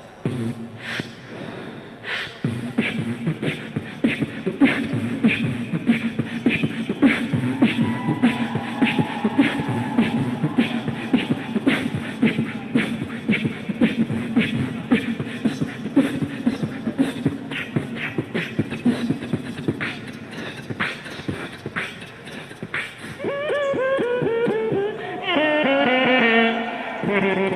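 Human beatboxing: mouth-made drum hits at a steady, fast beat over a hummed bass line. About 23 seconds in it turns to a wavering, gliding pitched vocal sound.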